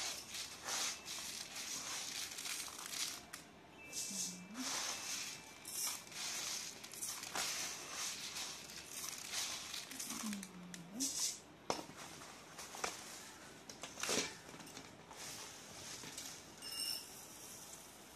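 Dry parboiled rice grains rustling and scraping as a steel tumbler is dug into them on a woven bamboo winnowing tray and filled, in a string of uneven swishes, with a few sharp clicks of the tumbler later on.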